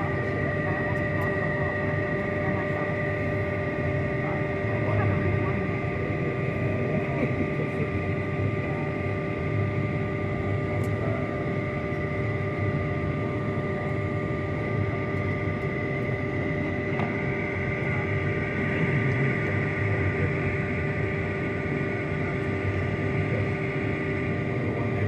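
Steady hum and rushing air inside the cabin of a Bombardier CRJ-200 regional jet parked at the gate, before the engines are started. Several steady tones sit over the air hiss and a low rumble.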